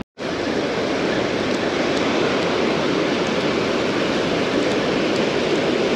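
Ocean surf washing up onto the beach in a steady rush of noise, starting after a split-second of silence.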